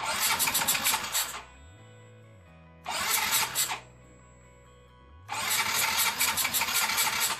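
Yamaha Mio 125 scooter's single-cylinder fuel-injected engine cranked by its electric starter in three bursts: about a second and a half, under a second, then about two seconds, each with a fast even chugging. The engine turns over without settling into a steady idle. Faint music plays in the gaps.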